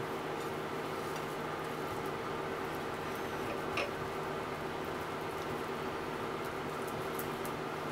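Steady mechanical hum with several fixed tones, under faint soft taps and light clicks of fingers pressing potato starch onto pieces of thick fried tofu on a ceramic plate. One slightly sharper click near the middle.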